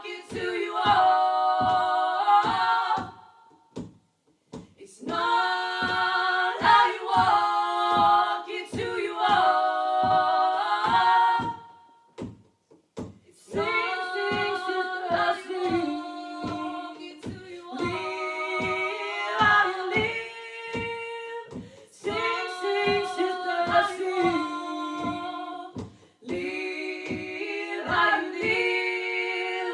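Women's voices singing sustained, wordless harmonies in long phrases with short breaks between them, over a steady percussive beat of about two strikes a second.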